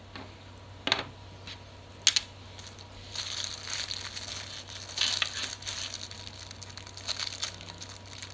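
Two sharp clicks of small objects set down on a table, then plastic packaging crinkling irregularly as fidget toys are handled.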